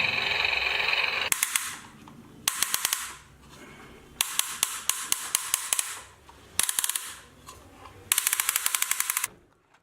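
A toy RC tank's built-in electronic sound effect: rapid machine-gun fire from a small speaker, in five short bursts with pauses between them, thin and high with little bass. It follows a steady engine-like sound effect that stops about a second in.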